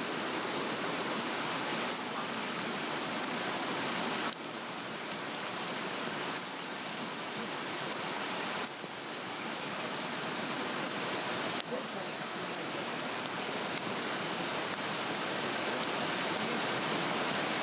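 Steady rushing of a stream, with faint crackles from a Swedish torch fire burning on a fire stand.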